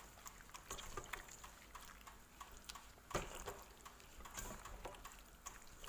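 Raw chicken pieces being mixed by hand with dry seasonings in a bowl: faint, irregular clicks and taps, with one louder knock about three seconds in.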